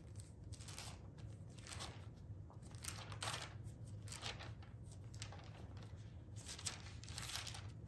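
Bible pages being leafed through: soft, irregular rustles of thin paper over a low steady hum.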